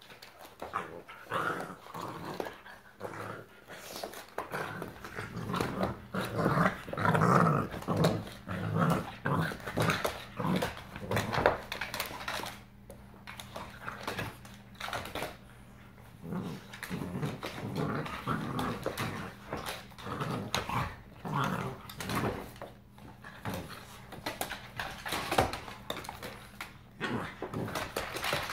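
An adult dog and a puppy play-fighting, growling in short irregular bursts, with scuffling and clicking as they wrestle. The growling is loudest in the first half.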